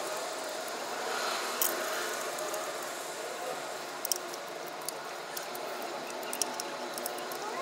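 Scattered small clicks and light handling noises from hand work on the underside of the transmission, over a steady background hiss.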